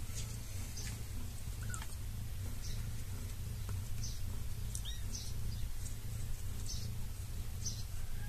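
Kittens moving about on a laminate floor: scattered faint ticks and scuffs, with a few brief high chirps, over a steady low hum.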